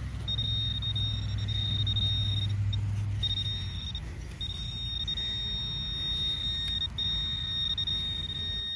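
Handheld metal-detecting pinpointer probing loose soil in a dug hole, giving a steady high-pitched alert tone that breaks off briefly a few times as the probe moves. The tone means metal is close by in the soil.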